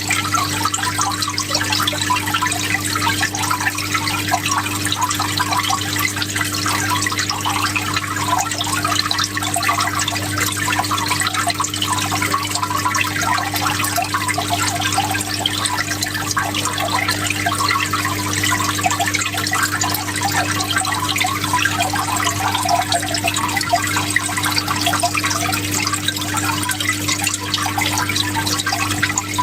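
Water flowing steadily, a continuous splashing trickle, with a steady low hum underneath.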